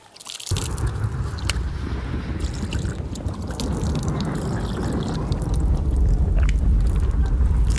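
Water poured from a small steel pot over a man's hands as he rinses them, splashing and dripping, with a few small clicks. Under it a strong low rumble grows louder toward the end.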